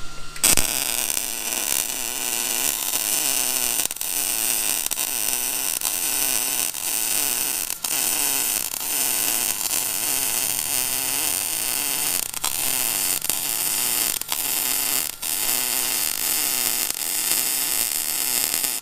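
MIG welder arc crackling steadily as a small sheet-steel box is welded together. It starts about half a second in, drops out for a moment a few times as the bead is paused, and stops at the end.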